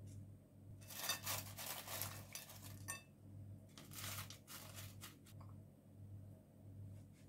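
A spoon scraping against an earthenware dish as sauce is spread, with a few light clinks, for about two seconds starting a second in. Then a second, shorter run of scratchy handling noise as fries are laid into the dish. A low steady hum lies underneath.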